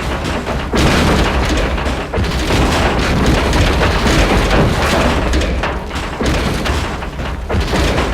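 Car sound effect: a loud, continuous, rough rumble with constant crackle and a deep steady hum underneath.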